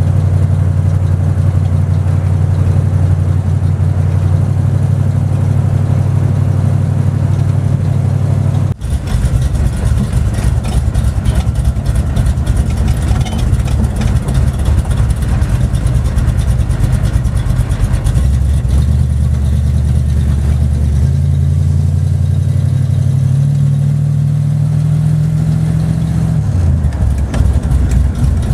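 Big-block 440 V8 in a 1971 Plymouth Scamp, heard from inside the cabin while driving. First a steady cruising drone, which breaks off briefly about nine seconds in. Later the engine note climbs in steps and then drops away sharply near the end.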